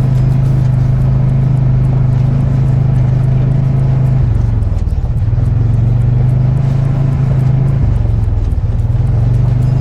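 Polaris RZR 570 side-by-side's single-cylinder engine running steadily under load, its pitch dropping twice as the throttle is eased and then climbing back.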